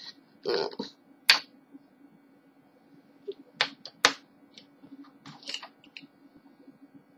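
Small plastic clicks and handling noise from a makeup product's cap being pulled off: one sharp, loud click about a second in, then a few lighter clicks around the middle.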